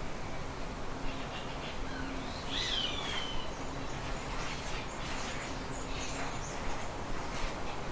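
Several birds chirping and calling in scattered short notes. A clearer call comes about two and a half seconds in and slides down in pitch.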